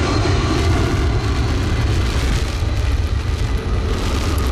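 Jet airliner's engines rumbling deep and steady. A high engine whine fades out about a second in.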